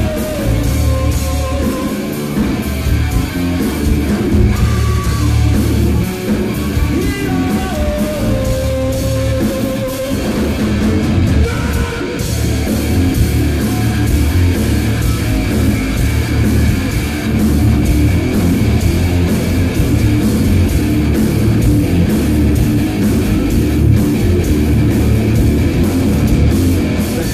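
Hard rock band playing loud and live: distorted electric guitars, bass and drum kit, with a stepped melodic lead line over the first ten seconds or so.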